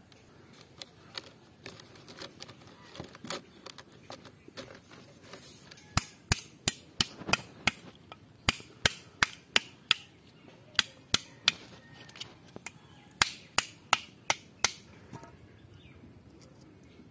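A knife striking a snail shell on hard ground to crack it open. Fainter taps come in the first few seconds, then sharp knocks in runs of three to six, about three a second, from about six seconds in until near the end.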